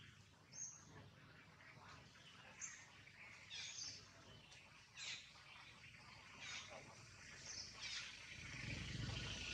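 Short, high chirping calls that fall in pitch, repeating every second or so over a faint outdoor background; a low rumble builds near the end.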